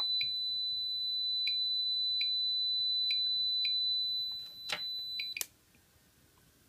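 Geiger counter's count-rate alarm sounding as a steady high-pitched beep, with irregularly spaced detection clicks over it: the count from uranium (Vaseline) glass beads has gone past the 150 CPM alarm setting. The tone cuts off suddenly with a sharp click about five seconds in.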